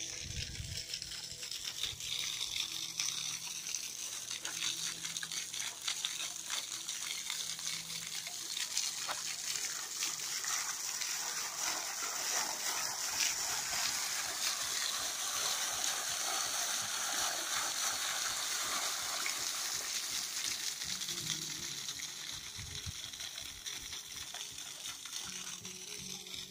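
Fountain water splashing, a tall jet falling back into a stone basin as a steady hiss. It grows louder toward the middle and then fades.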